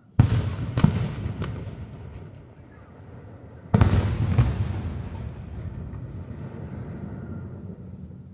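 Aerial fireworks shells bursting: two loud booms about three and a half seconds apart, each followed by a couple of smaller cracks and a long rolling rumble that slowly fades.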